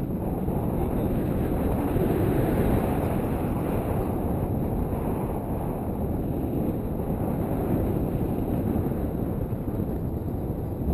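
Wind rushing over the camera microphone during a tandem paraglider flight, a low, steady buffeting of airflow.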